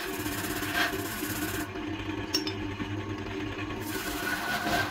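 BURT wood lathe running with a steady hum while a hand-held gouge cuts into a spinning coconut-wood log, a rasping scrape of the tool on the wood. The scraping eases off for about two seconds in the middle and picks up again near the end.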